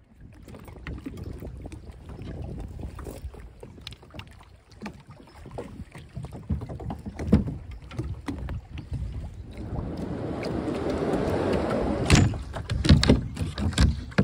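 A plastic sit-in kayak is handled and launched from a floating plastic kayak launch dock. The hull and paddle knock and thud against the dock, with the loudest thuds a couple of seconds before the end. A swell of rushing noise builds about ten seconds in, over a steady rumble of wind on the microphone.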